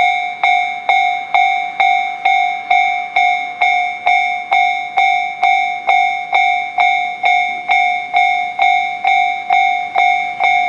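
Japanese railway level-crossing warning bell ringing steadily, a little over two sharp dings a second, each one fading before the next. It signals that the crossing is closed for an approaching train.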